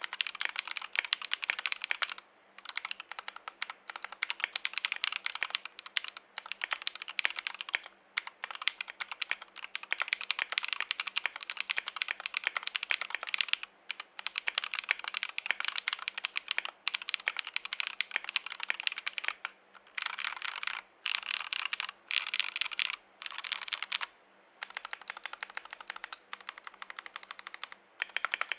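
Typing on a KBDFans Tofu65 mechanical keyboard with lubed Glorious Holy Panda tactile switches on an aluminium plate in an acrylic case: a fast, steady run of keystrokes, broken by short pauses every few seconds.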